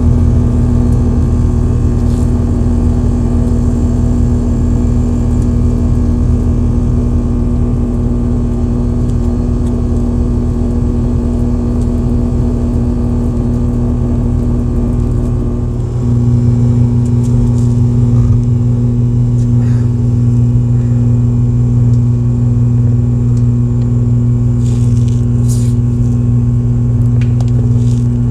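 Bryant rooftop air-conditioning unit running, its compressor and condenser fan making a loud, steady hum with a strong low tone; the hum shifts slightly about halfway through. A few light clicks near the end.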